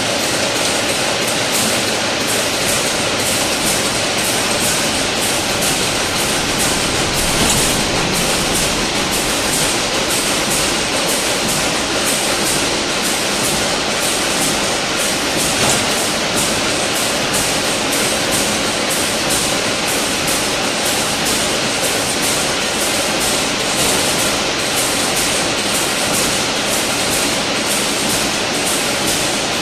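Fully automatic chain link fence weaving machine running: a loud, steady mechanical clatter with dense, rapid clicking as it weaves wire into diamond mesh.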